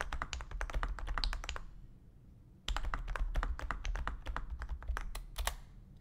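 Fast typing on a lubricated membrane keyboard: a rapid run of key presses, stopping for under a second about two seconds in, then resuming.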